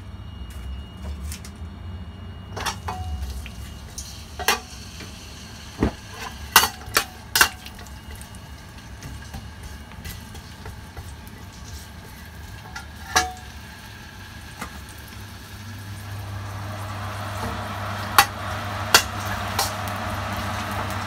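A metal spatula clinks and scrapes against a stainless steel wok, in sharp separate strikes. From about three quarters of the way in, a sizzle builds as sliced ginger goes into the hot oil.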